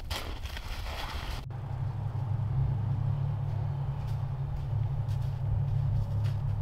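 Footsteps crunching in snow, which stop abruptly about a second and a half in. They are followed by a steady low rumble.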